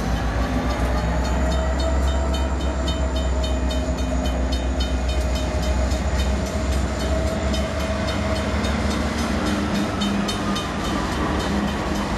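Norfolk Southern diesel-electric locomotives, GE C40-9W units behind an SD60, passing close by: a steady low engine drone with a whining tone over it and rolling wheel noise.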